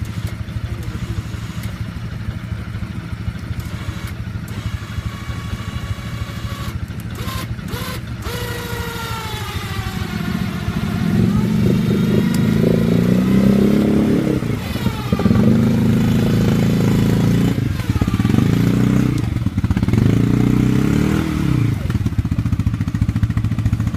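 Quad bike (ATV) engine running steadily, then from about ten seconds in revving louder, up and down repeatedly, under load as it is driven to get out of a mud hole. A few short knocks come around a third of the way through.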